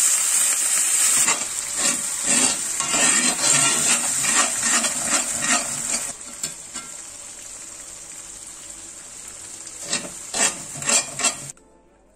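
Cream sizzling as it hits hot fat in a cast-iron skillet while a spoon stirs and scrapes the pan. The sizzle is loudest at first and settles about six seconds in, with a few sharp spoon-on-pan knocks shortly before the sound cuts off near the end.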